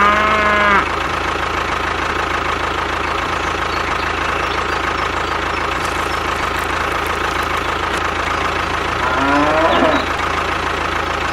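Steady running of the mini machines' small motors. A short pitched call, moo-like, comes at the start, and a second, rising call about nine seconds in.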